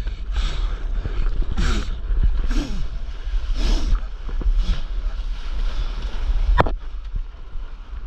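Stand-up paddle strokes: the paddle blade splashes and gurgles through the water about once a second, over a steady low rumble of wind on the microphone. A single sharp knock comes about two-thirds of the way through.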